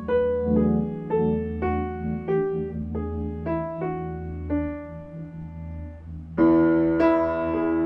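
Background piano music: single notes played about twice a second over a low held bass, then a louder full chord about six and a half seconds in.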